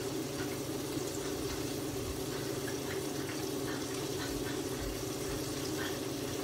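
Tilapia fillets frying in hot grease: a steady sizzle with scattered small pops.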